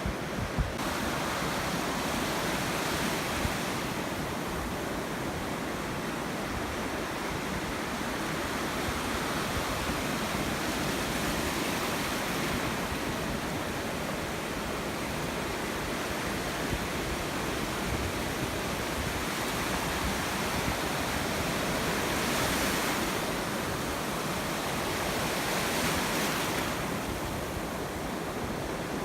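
Ocean surf: a steady rush of waves on the shore that swells louder every several seconds as waves break.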